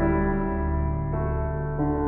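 Background music: soft electric-piano chords, changing about once a second.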